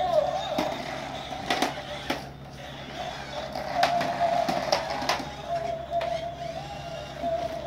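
Battery-operated light-up toy playing a thin, tinny electronic tune, with sharp plastic clicks and knocks every half second or so as it moves across the floor.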